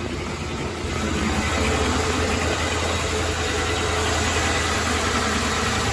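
Ford Panther-platform car's 4.6-litre V8 idling steadily, just started after sitting unused for a few weeks.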